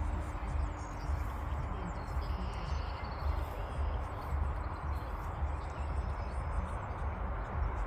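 Electric motor and propeller of an E-flite Hawker Hurricane RC plane flying some way off: a faint steady drone that fades out about five seconds in, over a low uneven rumble. The propeller is out of balance, which the pilot calls terrible.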